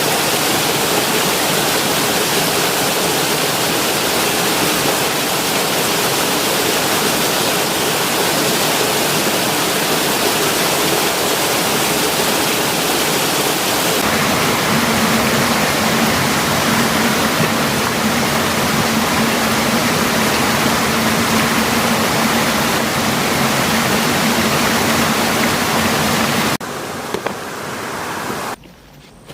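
Fast-flowing river water rushing loudly and steadily. The sound changes slightly about halfway through, then falls away sharply near the end.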